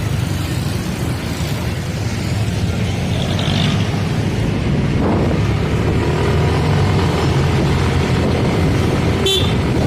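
Car engine and road noise heard from inside the car as it drives off: a steady low rumble, with a brief tone near the end.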